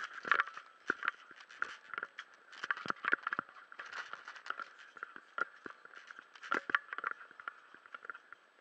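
Irregular knocks, taps and scrapes of scuba gear and the body-worn camera being jostled on a boat deck. The loudest knocks come in clusters near the start, about three seconds in, and again near seven seconds.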